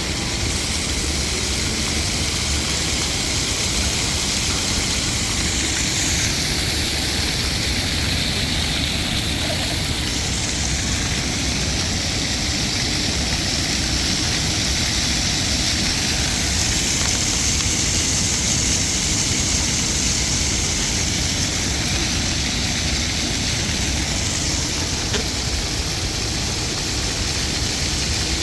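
Water fountain jets splashing into the basin: a steady, even rush of falling water.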